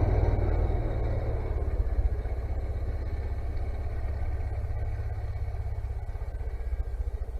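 An engine running with a steady low throb, growing gradually quieter.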